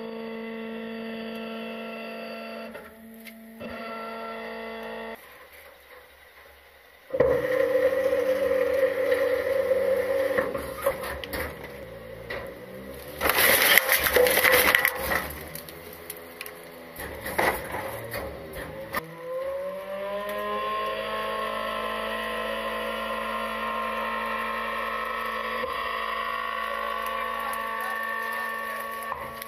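Small side-loader garbage truck's hydraulics whining steadily. About seven seconds in the lifting arm starts working, and a wheeled trash cart is tipped into the hopper, its load crashing in loudly around the middle. After that the engine and hydraulic pump rise in pitch and hold a steady whine.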